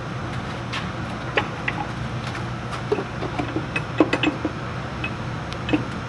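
Scattered light metal clicks and knocks as a cast brake housing cover is worked by hand onto its locating dowels, with a few sharper knocks around the middle, over a steady low hum.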